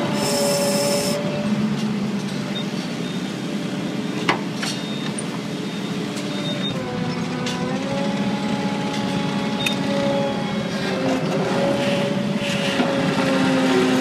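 Feed mixer wagon running as it lays feed along the bunk: a steady engine and machinery drone whose pitch shifts about halfway through, with one sharp knock a little after four seconds.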